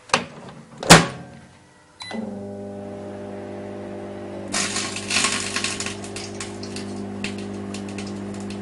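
A microwave oven closed and started: a knock and a louder thump, a short beep, then the oven's steady hum. About four and a half seconds in, the two CDs inside begin crackling loudly, a dense run of snaps that thins out but keeps going: the sound of the discs' metal layer arcing in the microwave.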